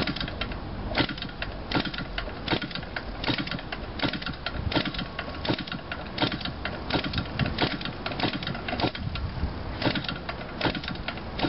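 Propeller of a small gasoline model-aircraft engine being flipped by hand over and over, giving a string of irregular slaps and clicks as the engine is turned over. It does not catch and run.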